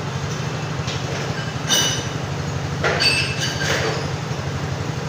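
A steady low engine drone with an even pulse, with two short ringing metallic clinks about two and three seconds in.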